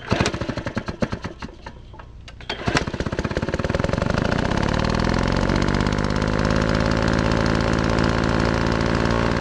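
Small gasoline engine firing unevenly in separate strokes, then catching about three seconds in and running steadily at a fast, even rhythm.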